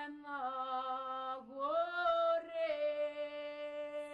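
Music: a single voice singing slow, long held notes, gliding between pitches.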